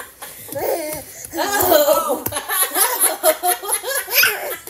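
Women laughing heartily, with a baby's voice mixed in among the laughter.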